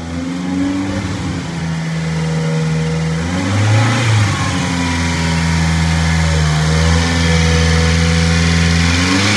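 Subaru Sambar kei truck's small 660 cc four-cylinder engine idling, revved up briefly about three and a half seconds in and again at the very end.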